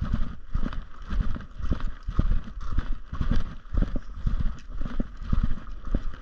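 Footsteps on a gravel trail at a steady walking pace, about two steps a second.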